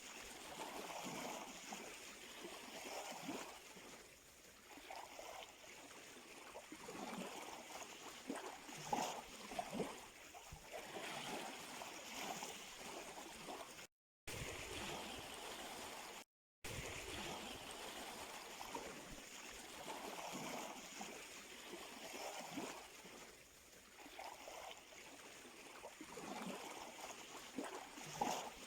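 Small sea waves lapping and washing on the shore, with gurgling and trickling water. About halfway through, the sound cuts out to silence twice, briefly.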